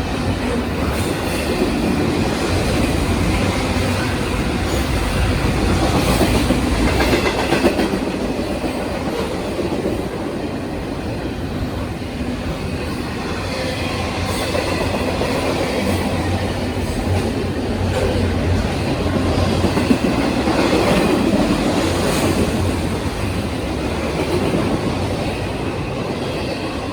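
Double-stack container cars of a Union Pacific intermodal freight train rolling past: a steady rumble of steel wheels with clicking over rail joints and a faint, high wheel squeal now and then.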